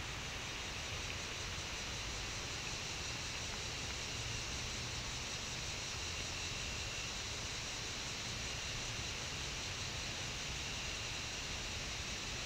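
Steady outdoor background hiss picked up by a trail camera's microphone in the woods at dusk, with a faint high insect chorus of crickets or katydids running through it and a low rumble underneath.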